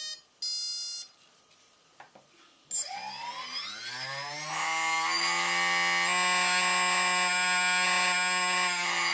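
ReadyToSky brushless drone motor: a short electronic beep from its speed controller, then the motor spinning up with a rising whine and running at a steady high speed.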